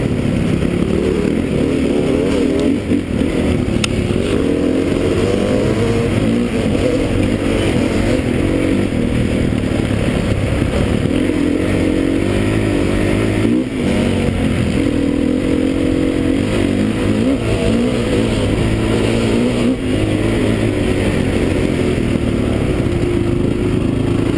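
Enduro dirt bike engine heard close up from a camera on the bike, running continuously over rough trail with its pitch rising and falling as the throttle is worked. It briefly drops off the throttle a few times.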